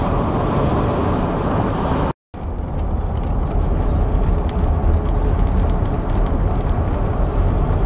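Steady road and engine rumble heard from inside a moving van's cabin. It drops out for a moment about two seconds in, then resumes with a heavier low rumble.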